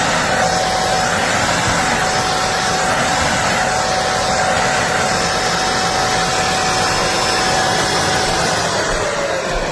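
Beldray 2-in-1 stick vacuum cleaner's 600 W motor running steadily with a whine while vacuuming up dirt. Near the end the whine falls in pitch as the motor winds down.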